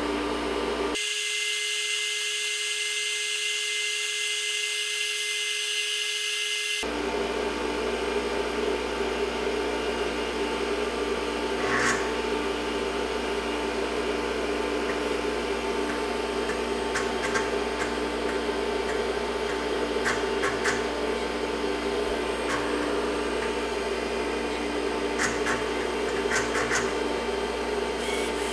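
IBM XT 5160 running with a steady mechanical whir from its fan and drives while its floppy drive formats a disk. For several seconds near the start the sound turns thinner, with a steady high tone. From about twelve seconds in there are a few faint clicks from the floppy drive's head.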